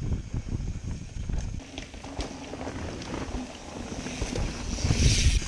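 Mountain bike riding over a rough dirt trail: the jolting rumble and knocks of the ride, with wind on the microphone. About five seconds in, a mountain bike passes close by, its tyres hissing through dirt and dry leaves.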